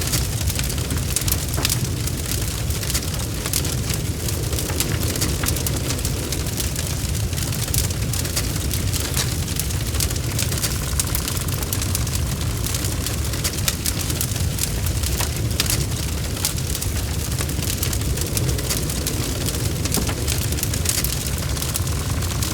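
Fireplace wood fire burning: a steady low rumble of flames with many sharp crackles and pops scattered throughout.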